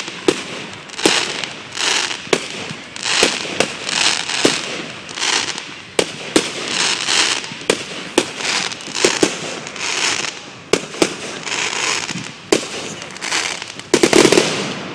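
Fireworks going off in a rapid series, each sharp bang followed by a crackling fizz, about one a second, with a louder cluster near the end.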